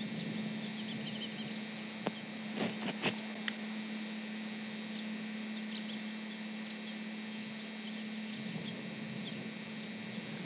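A steady low hum with faint, scattered high chirps, and a few short knocks between about two and three and a half seconds in.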